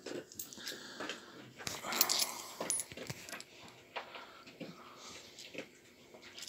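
A small handful of British coins clinking and shuffling in a hand, with light rustling from handling.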